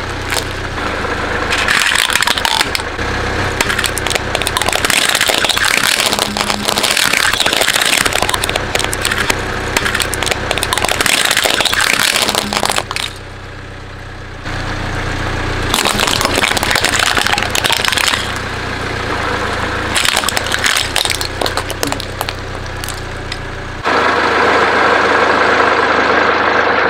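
A car engine running while the tyres roll over and crush objects, with crackling and crunching. The sound cuts abruptly between takes several times.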